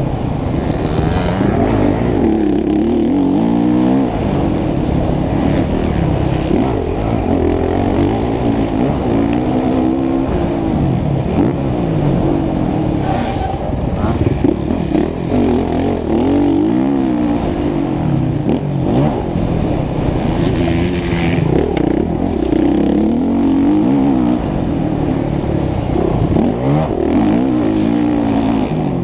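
Honda CRF450 motocross bike's single-cylinder four-stroke engine revving hard on the dirt track, its pitch climbing and dropping back over and over as the rider accelerates, shifts and rolls off into corners.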